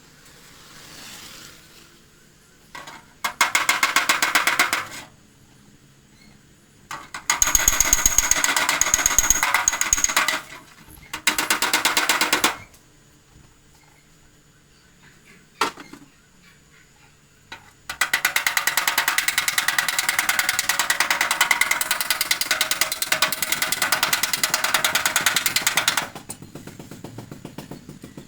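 Hammer rapidly tapping on the sheet-steel hood of a Volkswagen Beetle to work out a dent, in four runs of quick, even blows with short pauses between them. There is a faint metallic ring in some runs.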